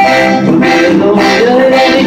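Live band playing accordion and guitars, amplified through the stage speakers, with a steady beat.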